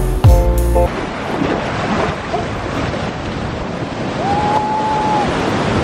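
Music with a beat cuts off about a second in, giving way to the steady rush of breaking surf with wind blowing on the microphone. A single short whistle-like tone sounds for about a second, some four seconds in.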